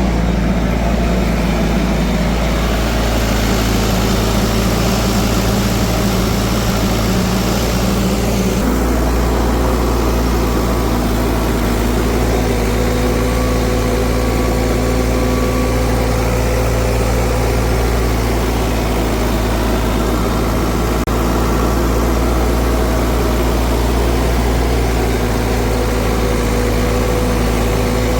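Heavy diesel engine running steadily, with its note shifting slightly about nine seconds in.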